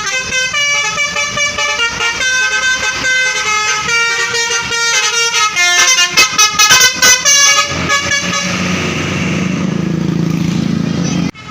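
Multi-tone 'telolet' bus horn (basuri) playing a fast melody of changing notes, breaking into quick short toots about six seconds in and stopping about a second and a half later. The passing bus then runs with a low steady drone and road noise.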